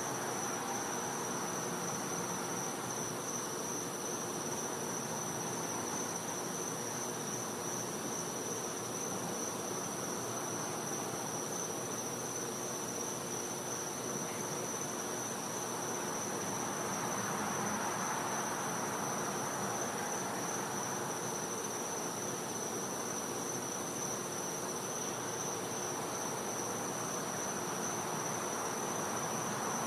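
Night insect chorus: one steady, high-pitched, unbroken trill, over a soft background hiss that swells slightly about halfway through.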